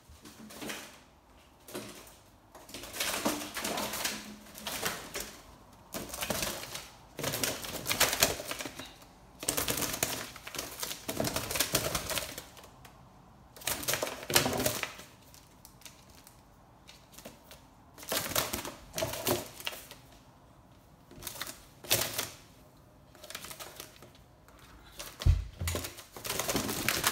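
Eurasian magpie trapped indoors, flapping and scrabbling against a window pane and frame: a rapid clatter of wings, claws and beak on the glass. It comes in bursts of a second or two with short pauses between them. There is one low thump near the end.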